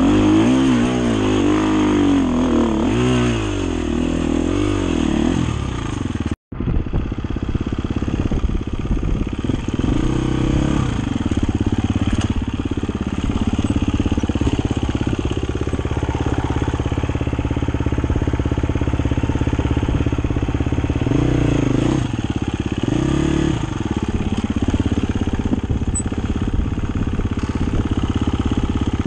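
Dirt bike engine revving up and down under throttle, then running more steadily with short bursts of throttle. The sound drops out for an instant about six seconds in.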